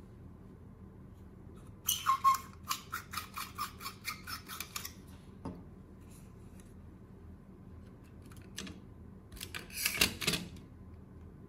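Clicks and scrapes of a plastic LED bulb housing being handled: a quick run of about ten sharp clicks over three seconds, a single click, then another short cluster near the end.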